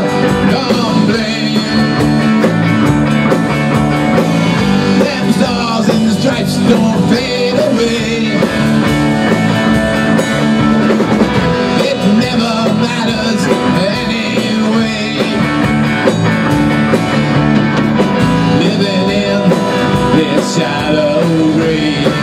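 Rock band playing live: drum kit, electric guitar and bass guitar, running steadily through a full-band passage.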